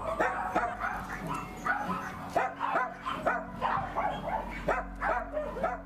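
Dogs yipping and whimpering, in short high cries repeated two or three times a second.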